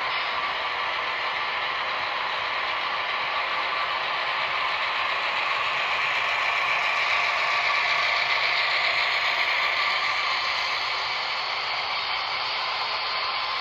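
HO scale model train rolling past on its track: a steady mechanical clatter of wheels on rails, a little louder around the middle as the US Army passenger cars pass closest.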